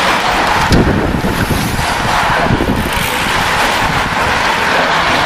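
Loud wind noise buffeting the microphone as a pack of road racing bicycles passes close by, with one short click about a second in.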